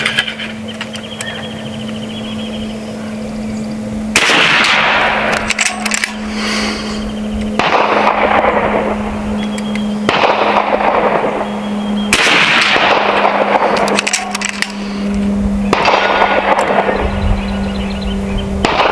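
A .30 calibre PCP air rifle firing six shots a few seconds apart. Each is a sharp report that trails off over a second or two, over a steady low hum.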